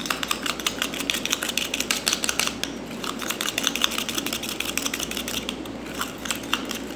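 A spoon beating dalgona coffee (instant coffee, sugar and water) by hand in a plastic bowl, making fast, even clicking taps, several a second. The mixture is thickening toward a creamy, whipped consistency.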